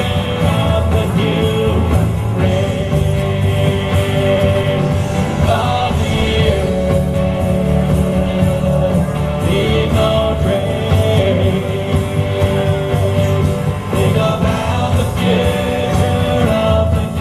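Live band music in an instrumental passage of a song: long held melody notes over a steady, full bass.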